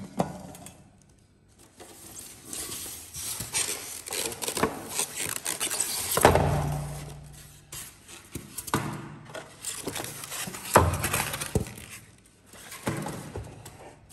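Stainless steel hotpot and its glass lid handled and set down: scattered knocks and clinks of metal and glass, some with a short ring, between stretches of rustling.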